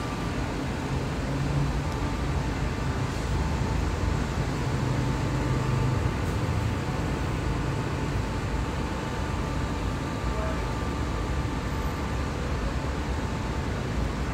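Road traffic on a multi-lane city street: a steady rumble of cars running past, with a faint steady hum under it.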